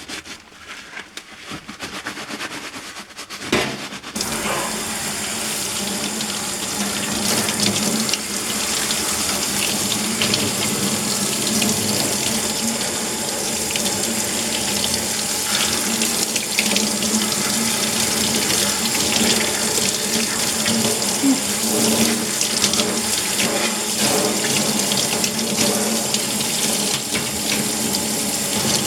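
Tap water running into a kitchen sink, turned on about four seconds in and running steadily, rinsing baking-soda-scrubbed grease off range-hood parts.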